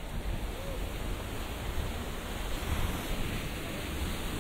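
Sea waves washing onto a beach in a steady surf wash, with wind rumbling on the microphone.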